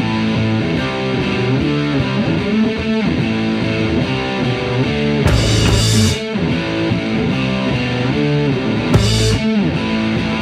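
Rock music led by a distorted electric guitar, with brief bursts of high hiss about five and nine seconds in.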